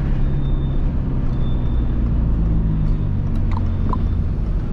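Peugeot 206 1.4 with a straight-pipe exhaust running at steady revs, a low, even exhaust drone whose pitch shifts slightly about three seconds in.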